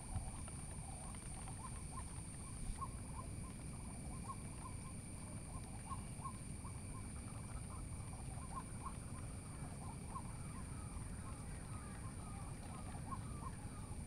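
Faint outdoor animal calls: short chirps repeating irregularly, several a second, over a steady low rumble and a thin steady high whine.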